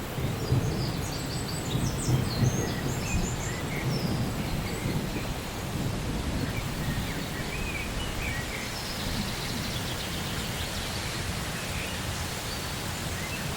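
Steady rain with a low rumble of thunder, heaviest in the first few seconds. Birds chirp briefly over it near the start and again later.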